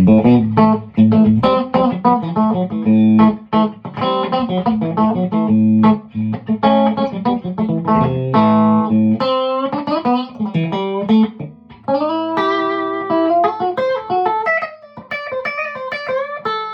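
Tom Anderson Classic electric guitar played through an amp on its bridge and middle stacked single-coil (hum-cancelling SC) pickups together, with the VA booster off. It starts with a low, chunky repeated-note riff, then about ten seconds in moves to higher chords and single notes left ringing.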